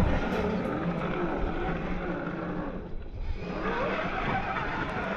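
Electric motor and drivetrain of a DF Models DF4S Toyota 4Runner RC crawler whining as it churns its tyres through mud. The pitch rises and falls with the throttle and drops away briefly about three seconds in.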